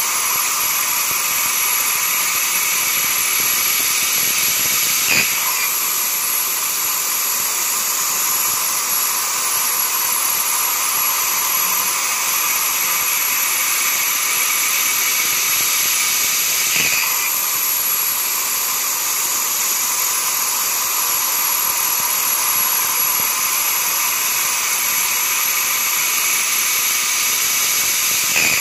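CNC machining centre plunge milling a slot in stainless steel with a 32 mm four-tooth indexable plunge cutter: a steady high cutting whine and hiss. A brief sharp knock comes three times, about twelve seconds apart.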